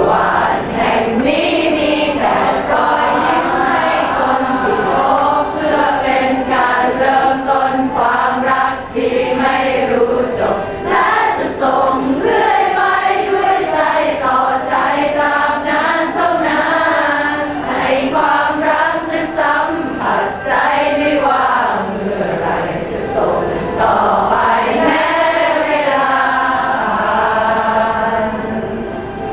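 A group of people singing a song together, many voices at once in a choir-like blend.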